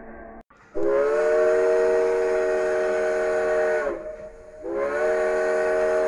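Steam locomotive's chime whistle sounding two long blasts of about three seconds each, several notes together in a chord that sags in pitch as each blast cuts off.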